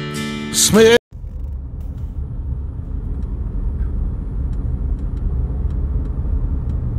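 A sung song with guitar cuts off about a second in; then a car's steady low road and engine rumble, heard from inside the cabin while driving.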